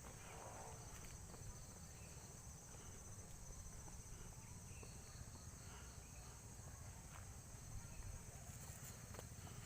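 Faint, steady high-pitched trilling of insects such as crickets or cicadas, over a low rumble, with a few soft clicks.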